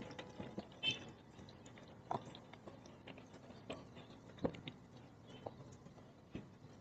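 Faint, irregular drips and small ticks of water falling slowly from a public purified-water dispenser into a plastic bottle, the flow reduced to drips because the dispenser's tank has run out of water.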